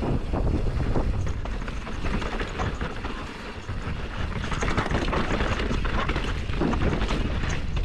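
Wind buffeting an action camera's microphone as a mountain bike descends a dusty dirt singletrack, with tyre rumble and the bike rattling over bumps and rocks. The noise eases briefly about halfway through, then picks up again.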